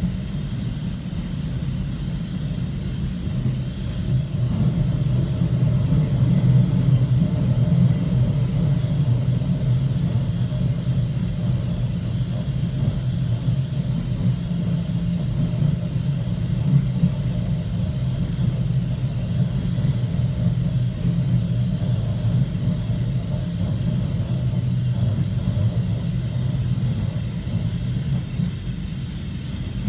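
Running noise of an NS Sprinter Light Train electric multiple unit under way, heard from inside the passenger cabin: a steady low rumble that grows a little louder about four seconds in.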